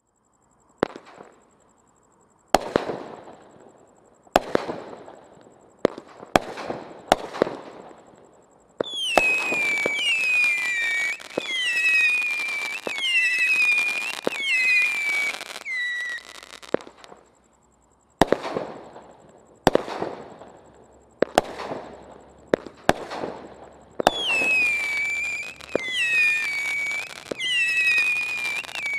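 Brothers Pyrotechnics Copper Devils 200-gram firework cake firing its shots: sharp launch pops one to two seconds apart, each trailing off. From about nine seconds in comes a run of overlapping whistles, each dropping in pitch and then holding, then more single pops, then whistles again near the end.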